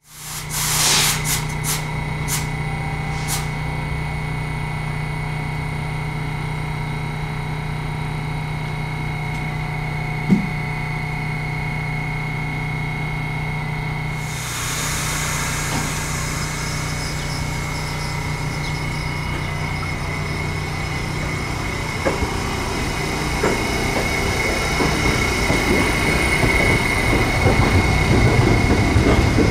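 R68 subway train standing at the platform with a steady low hum and a few clicks in the first seconds. About halfway through a hiss sets in, and the train's sound grows steadily louder as it pulls out, with rail clatter.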